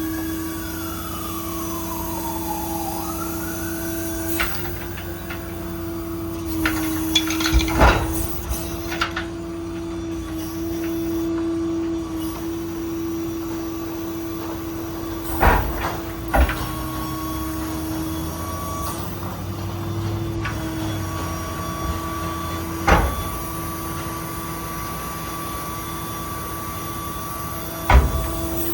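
IMT 7500 service crane on a Ford F-550 working under hydraulic power: a steady whine from the running hydraulics, with a gliding tone near the start and several sharp metal clunks from the crane, the loudest a cluster about seven to eight seconds in.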